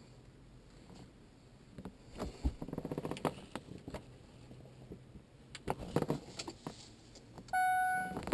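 Scattered clicks and light handling noises from the controls of a Pioneer MVH-S522BS car stereo being worked through its setup menu. Near the end a steady electronic tone starts and holds.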